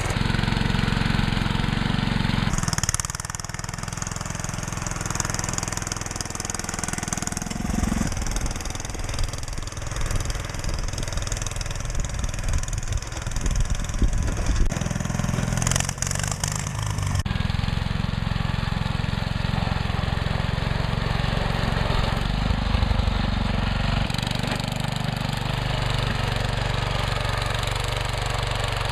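Small garden tractor engines running while pushing snow with front plow blades. The sound changes abruptly several times as one tractor gives way to another.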